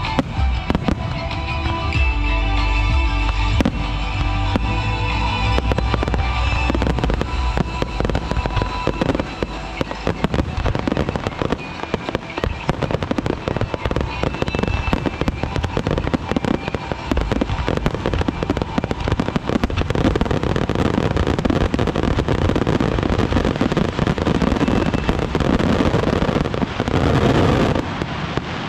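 Fireworks crackling and bursting in a dense, continuous barrage, with music audible over roughly the first third.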